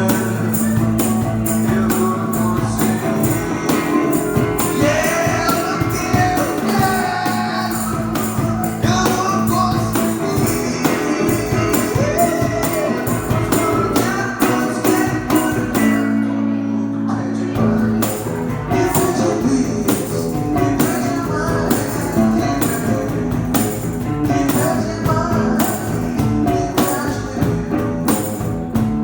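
A rock band playing: guitars and drums with a tambourine keeping an even beat. About sixteen seconds in the drums drop out for a moment, leaving only held low notes, then the full band comes back in.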